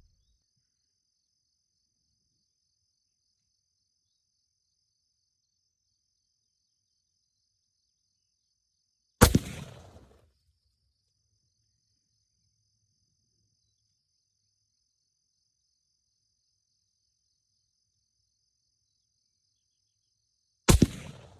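Two rifle shots from a 7mm-08 deer rifle, one about nine seconds in and another near the end. Each is a sudden loud crack that dies away over about a second. Between them insects make a faint, steady, high-pitched pulsing buzz.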